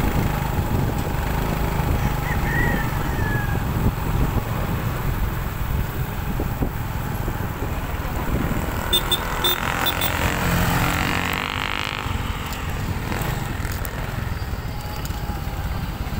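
Motorcycle engine running steadily while riding along a road, with road noise, heard from on the bike.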